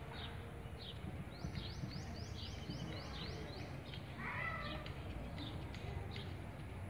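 Small birds chirping over a steady low background rumble, with a quick run of about nine short, falling high notes about a second and a half in.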